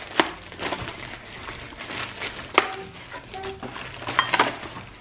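Plastic food packaging being opened: a clear plastic sushi tray having its tape cut with a knife, and a plastic bag rustling. Sharp plastic clicks and snaps come about a fifth of a second in, at about two and a half seconds, and a quick cluster near four seconds, with short squeaks between.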